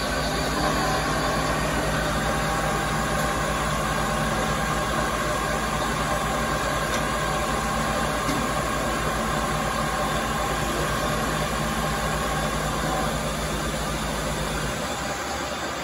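Vertical milling machine running, its end mill cutting an aluminium block under power feed: a steady mechanical hum with a whine on top. The whine fades and the low hum drops out near the end.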